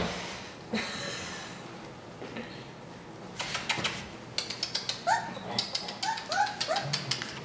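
Coton de Tulear puppy giving a run of about seven short, high yips that fall in pitch, a little past the middle, among light rapid clicks.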